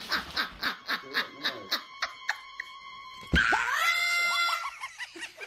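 A woman laughing in quick, breathy pulses, then, just past halfway, a parrot's loud, sliding screech.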